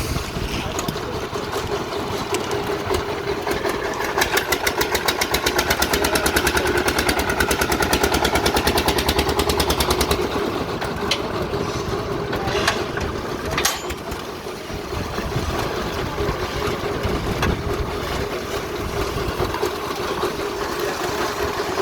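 An engine running steadily, with a stretch of fast, even pulsing in the middle and a few sharp clicks later on.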